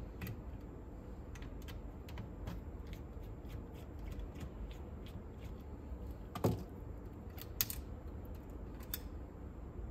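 Small screws being unscrewed from a cassette deck's head block with a screwdriver: faint scattered clicks and ticks, with a sharper click about six and a half seconds in and two more near the end.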